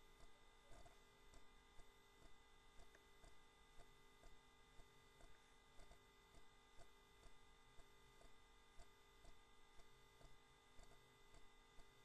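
Near silence: a faint steady electrical hum, with faint ticks about twice a second.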